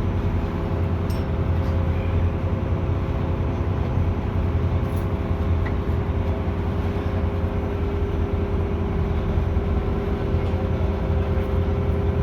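A cruise boat's engine running steadily, heard on board as an even low drone with a steady hum.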